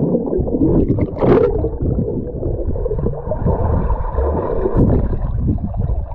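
Muffled underwater sound of pool water heard through a submerged camera microphone: churning and gurgling bubbles with a dull low rumble, and a brief brighter burst about a second in.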